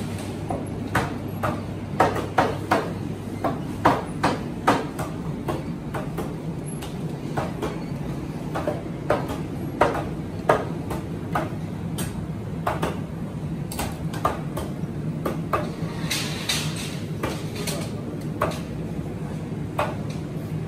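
Butcher shop background: a steady low hum with many sharp, irregular knocks and clicks of handling and clatter, a few a second, thickest near the start and again late on.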